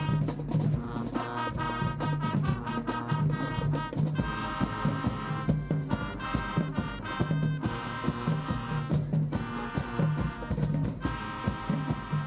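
High school marching band playing up-tempo music: held brass chords over drum hits, with a low brass bass line pulsing in a steady rhythm.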